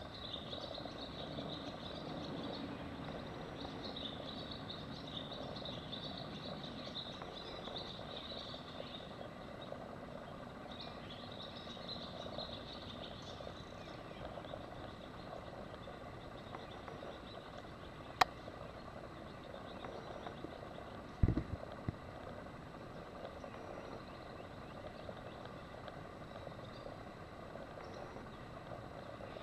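Faint outdoor ambience with a high, broken chirring, as of insects or frogs, through the first half. A single sharp click comes about eighteen seconds in, and two dull thumps follow a few seconds later.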